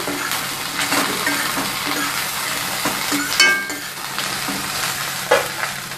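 Cut okra sizzling as it fries in hot mustard oil in a stainless steel kadhai, stirred with a metal spatula that scrapes the pan. A few sharp clinks of the spatula against the steel ring out, one a little past halfway and one near the end.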